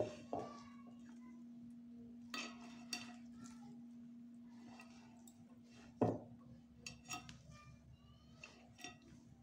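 Hands kneading stiff flour dough in an earthenware bowl: soft handling sounds with scattered knocks and clinks of hands and bowl against the clay, one louder knock about six seconds in. A steady low hum runs underneath.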